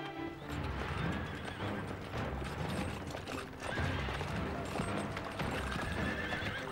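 Horses galloping in on a dirt yard, their hooves pounding in an uneven rhythm, with a horse neighing a couple of times.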